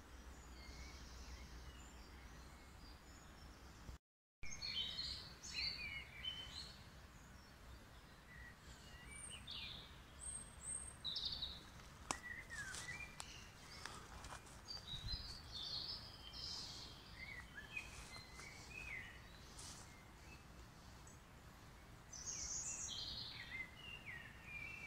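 Several songbirds singing and calling in woodland, many short chirps and trills overlapping, busier after the first few seconds. A few faint clicks sound in the middle.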